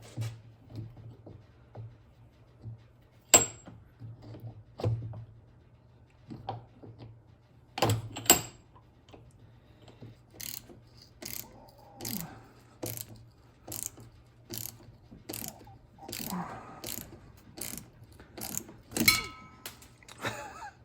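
Hand tools at work on a VW Vanagon's fuel pump fittings. A few sharp metal clanks and knocks come first. Then, about halfway in, a ratchet wrench clicks in even strokes about once a second, over a faint low hum.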